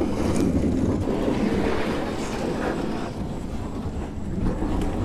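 Plastic fishing kayak hull dragged over rough concrete: a continuous scraping rumble.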